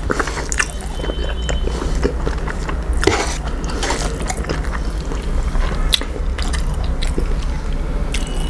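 Close-up eating sounds: wet chewing and the squelch of rice being mixed and squeezed by hand, with many small clicks and smacks, over a steady low hum.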